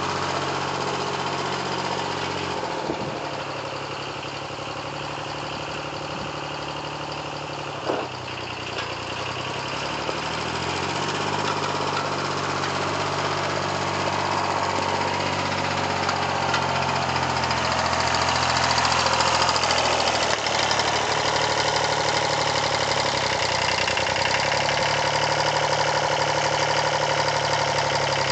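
Yanmar 336D's diesel engine running, its speed dropping a few seconds in, rising again a little before the middle, then dipping and picking up once more later. There is a single sharp click about eight seconds in.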